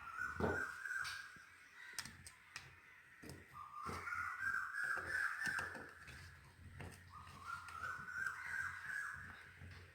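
Crows cawing in three runs of rapid, harsh calls, with scattered light clicks and knocks from hands working on the switchboard wiring.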